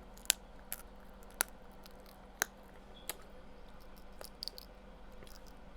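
Crab-leg shells cracking and snapping as they are broken open and picked for meat: a handful of sharp, irregular clicks a second or so apart.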